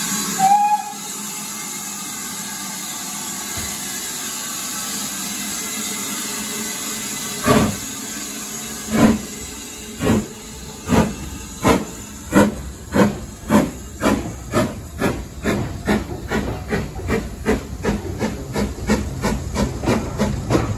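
BR Standard Class 9F 2-10-0 steam locomotive pulling its train away from the station: a short whistle just after the start and a steady steam hiss, then exhaust chuffs that begin slowly about seven seconds in and quicken steadily to several a second as the train gathers speed.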